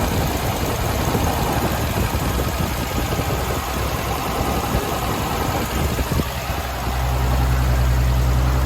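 A motor running steadily with a rattly, mechanical sound. About seven seconds in it settles into a louder, smooth low hum.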